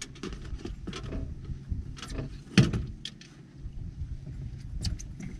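Fishing rods being handled in their holders on a boat: scattered clicks and taps, with one loud knock about two and a half seconds in, over a steady low rumble.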